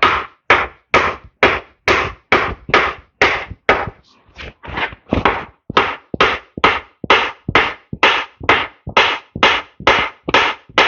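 Rapid, steady blows of a hand tool, about two to three strikes a second with a short pause around four seconds in, breaking up packed debris and corn residue in a Ford 7610 tractor.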